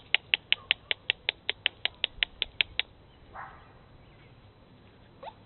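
An animal calling in a rapid, even series of about fifteen short, sharp, high calls, roughly five a second, lasting about three seconds. A brief rustle follows, and a short rising squeak comes near the end.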